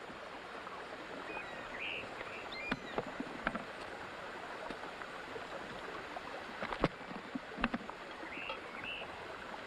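Outdoor background ambience: a steady rushing hiss with a few short high chirps, twice in a pair, and scattered sharp clicks and knocks.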